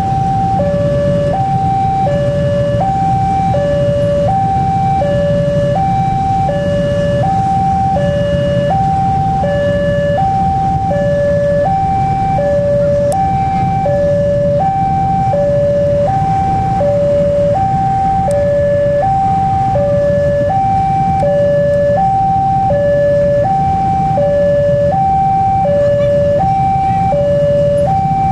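Railway level crossing's electronic warning alarm sounding a steady two-tone high-low signal, each tone held about a second, warning that a train is approaching. A low rumble of idling motorcycle and car engines runs underneath.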